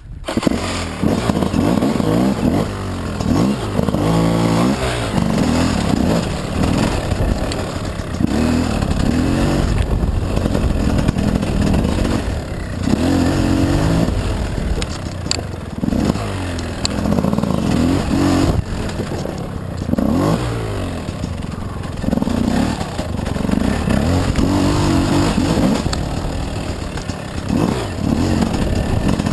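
Gas Gas dirt bike engine being ridden on a trail, revving up and falling back every few seconds as the throttle is worked, with a few sharp knocks.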